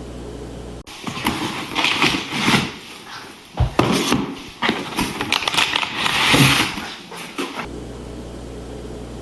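Hands setting up a coffee machine: irregular clicks, knocks and rustling as parts and packaging are handled, with a steady low hum before the handling starts and again after it stops.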